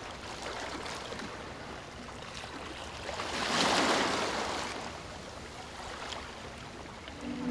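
Ocean surf washing onto a beach. The rush of one wave swells louder about halfway through and then falls away.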